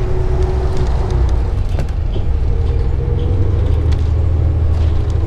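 City transit bus heard from inside while it drives: a heavy, steady low rumble of engine and road noise, with a faint steady whine over it as the bus turns a corner.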